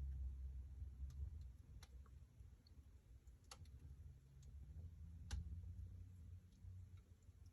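Wood fire in a fireplace crackling faintly: scattered sharp pops, about half a dozen, the loudest a little past halfway, over a low rumble of the flames.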